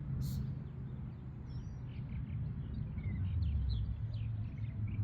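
Small birds chirping over and over with short high chirps, above a steady low rumble.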